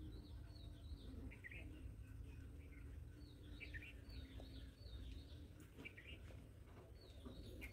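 Faint chirping of small birds, short repeated notes, over a steady low rumble.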